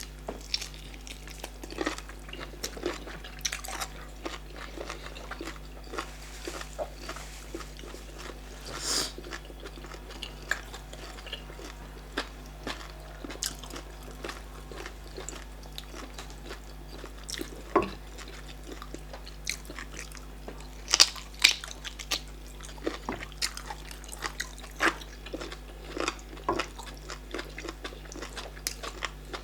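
Close-up mouth sounds of eating starch fufu and bitter leaf soup: wet chewing, lip smacks and sharp clicking smacks, irregular throughout and loudest in a cluster about two-thirds of the way in, over a steady low hum.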